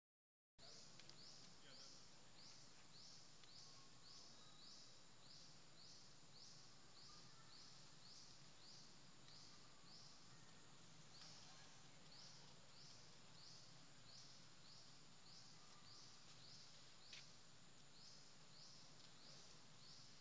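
Faint forest ambience: a high, buzzy insect chirp repeating a little over twice a second, pausing briefly twice. A single soft click sounds near the end.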